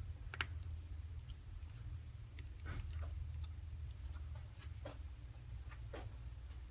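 A few small, scattered clicks and taps as the iPhone 5c's screen flex cables are pressed onto their connectors, over a steady low hum.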